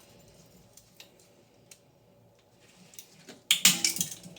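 A Leatherman multi-tool cutting a toilet flapper chain: a few faint clicks, then a short, loud burst of sharp clicking and clinking about three and a half seconds in.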